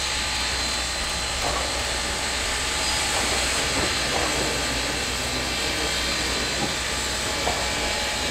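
Steam locomotive No. 97, a 1923 ALCO, letting off a steady hiss of steam, with a few faint knocks now and then.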